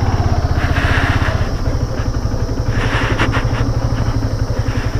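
Motorcycle engine running steadily at low revs as the bike is ridden, its firing pulses coming fast and even, with a few faint clicks about three seconds in.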